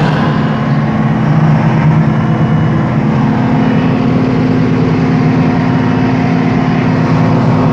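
Salem 1600 coal auger drilling machine running steadily, its engine holding an even pitch, heard from inside the machine's operator cab.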